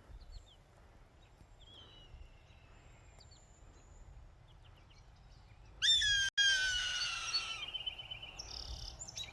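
A hawk gives one loud call about six seconds in, about two seconds long and falling slightly in pitch. Faint chirps of smaller birds come before it.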